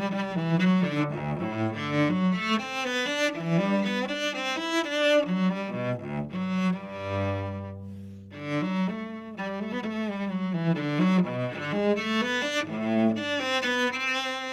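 Cello played with the bow, a flowing line of changing notes. About seven seconds in it settles on a long, low held note that fades a little before the moving notes start again.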